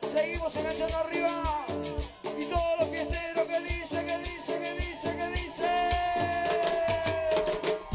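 Live Latin dance band playing: a metal güira scraped in a steady, quick rhythm over timbales, bass and guitars, with a gliding lead melody that holds one long note near the end.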